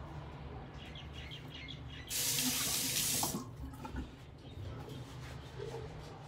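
Sink tap running for about a second, then shut off.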